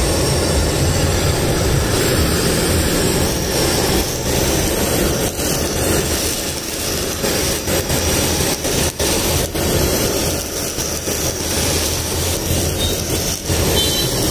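Handheld gas blowtorch flame roaring steadily as it sears the sauce-topped chaat for a smoky, tandoori-style char.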